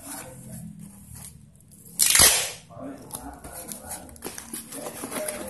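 Brown packing tape pulled off the roll in one quick, loud rip about two seconds in, with quieter handling of the tape and the cardboard box around it.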